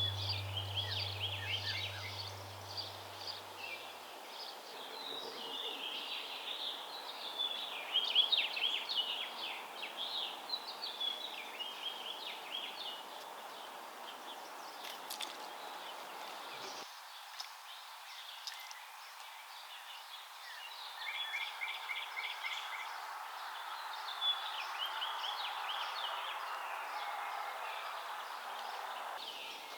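Outdoor ambience full of small songbirds chirping and singing, overlapping calls throughout, with one bird's rapid even trill about two-thirds of the way through, over a steady background hiss.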